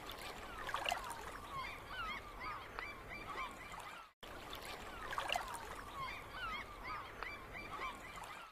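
A flock of birds calling, with many short honking, gliding calls over a faint hiss. It is a short loop: the calls break off about four seconds in and the same run of calls plays again.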